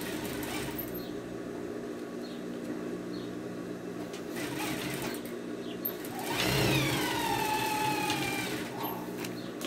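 Electric sewing machine stitching, with a steady motor hum. About six seconds in it runs louder with a whine that slides down in pitch for about two seconds, then stops.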